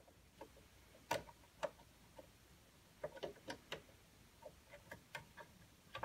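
Faint, scattered plastic clicks and ticks of a screw-type plastic pop-out trim fastener being turned and worked loose by hand.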